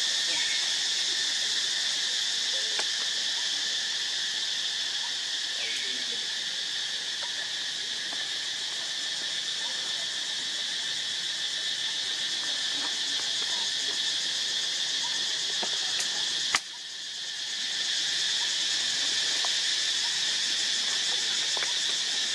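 Steady high-pitched insect chorus. A sharp click comes about three quarters of the way through, after which the chorus drops away and swells back over about a second.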